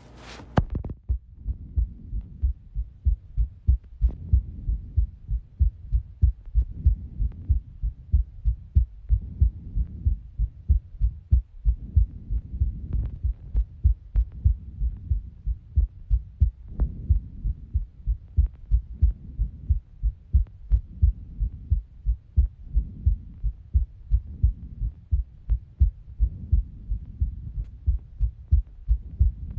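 A human heartbeat: a steady, regular "lub-dub" of low paired thuds. A short scraping noise comes right at the start.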